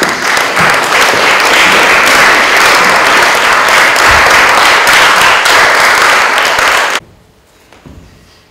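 Audience applauding loudly, a dense patter of many hands, cutting off abruptly about seven seconds in.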